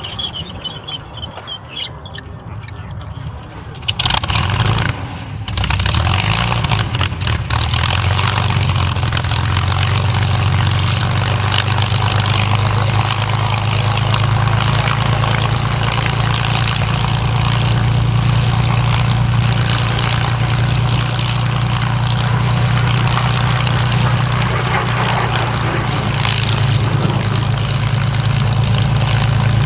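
Spitfire Mk IX's Rolls-Royce Merlin V12 engine starting up. It fires suddenly about four seconds in, falters briefly, then catches about six seconds in and settles into a loud, steady idle.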